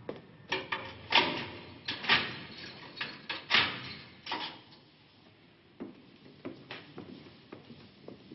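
Barred metal prison gate clanking as it is unlocked, swung open and shut, with a series of sharp metallic knocks in the first half, followed by fainter clicks and steps.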